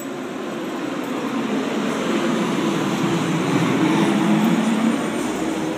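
Road traffic noise: a vehicle passing by, its sound swelling to a peak partway through and easing off near the end.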